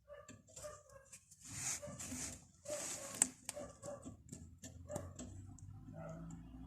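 Brake caliper guide pin being worked in its freshly greased bore: a run of short squeaks and squelches as grease and trapped air are forced out, with two louder hissing rushes about two and three seconds in and a few small clicks.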